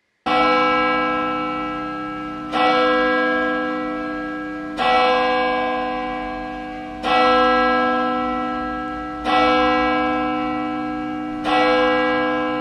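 A church bell tolling slowly: six strokes a little over two seconds apart, each ringing on and fading before the next.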